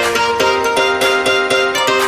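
Background music: quick plucked-string notes in a steady rhythm.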